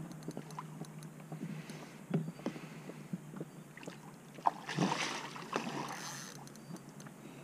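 Water splashing and scattered knocks beside a boat while a hooked carp is played close in, with a longer splash about five seconds in.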